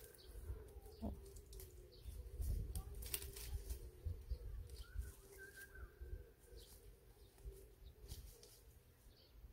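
Quiet outdoor ambience in scrubby woodland: scattered rustling and crackling in dry leaves and brush, low rumbling that swells about two to three seconds in, and faint bird chirps.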